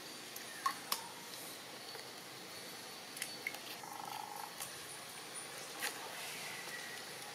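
Sharp crunching clicks as long-tailed macaques bite kernels off an ear of corn, a few scattered snaps, over a faint steady high hiss, with a short buzzy sound about four seconds in.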